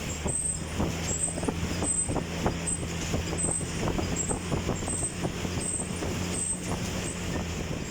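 Stationary exercise bike being pedalled at a steady pace with a fan running: a steady low hum, with a short high chirp repeating about every two-thirds of a second.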